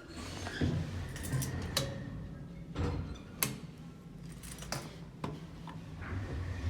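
2010 ThyssenKrupp elevator doors opening after arrival: the door operator runs with a low hum and a faint steady whine, with a string of sharp clicks and knocks from the door mechanism.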